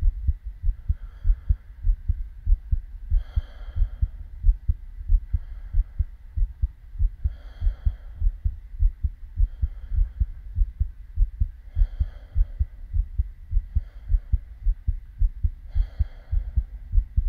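A person's heartbeat, heard as a steady run of low thumps, with a soft hiss swelling about every two seconds over it.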